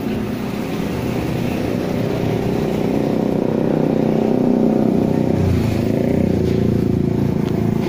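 Steady motor-vehicle engine noise from road traffic, swelling a little toward the middle.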